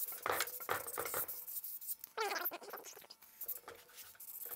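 400-grit sandpaper wetted with WD-40 rubbing back and forth on a cast crankshaft journal in quick scratchy strokes, about two or three a second, with a brief squeak about two seconds in.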